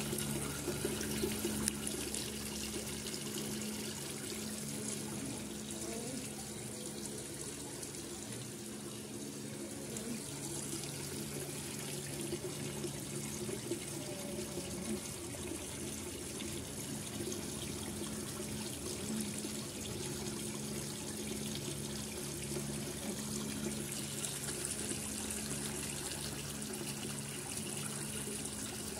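Steady rush of running water, with a low steady hum underneath.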